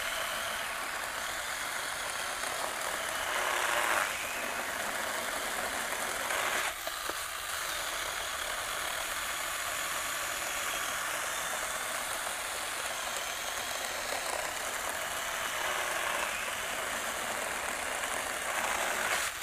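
BeiHong 6-inch 21 V cordless pruning chainsaw running steadily under load, its small electric motor and chain cutting slowly through a log, a saw short on power for this size of wood.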